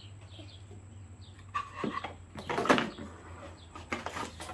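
Rummaging through a toy's box and packaging: a few short rustles and knocks, the loudest about halfway through, with faint bird chirps behind.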